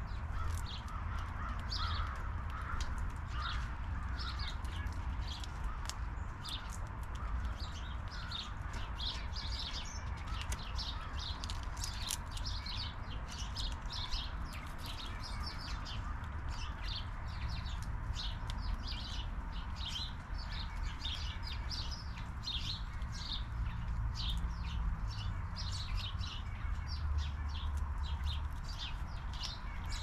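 Small wild birds chirping steadily, a dense run of short high chirps that goes on throughout, over a low steady rumble.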